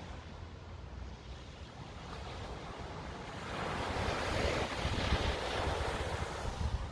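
Small sea waves washing onto the beach, with wind rumbling on the microphone; a louder wash of surf swells up about halfway through and eases off near the end.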